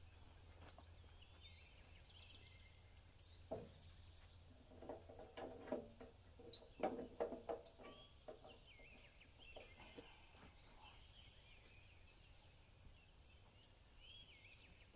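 Birds chirping faintly over near silence. A cluster of knocks and clanks falls between about four and eight seconds in, from hand work at the portable sawmill's log bed; the sawmill itself is not running.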